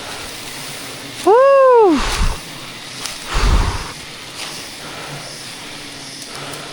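A loud whooping "woo" call from a man's voice, one call that rises and falls in pitch and lasts well under a second. Two dull low thumps follow, over a faint steady low hum.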